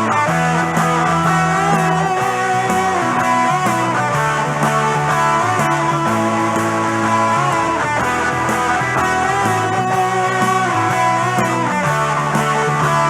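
Instrumental break in a rock-swing arrangement with no singing: an electric guitar plays a bending melodic lead line over held bass notes and a steady beat.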